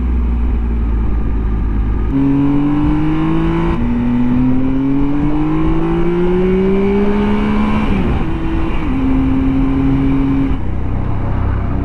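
Road vehicle's engine accelerating under load: the engine note climbs, drops sharply at gear changes about four and eight seconds in, then holds steady and falls away near the end, over constant low road and wind rumble.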